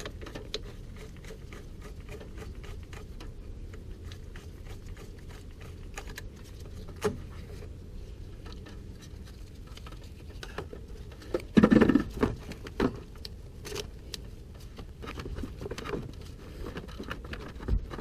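Light clicks, taps and scrapes of hand work on a truck's lower radiator hose and clamp, with a louder clatter of knocks about twelve seconds in.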